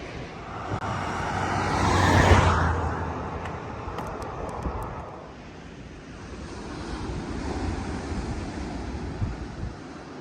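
A motor vehicle passing close by, its engine and tyre noise swelling to a peak about two seconds in and fading away, then a second, fainter vehicle passing near the end, over steady wind and surf.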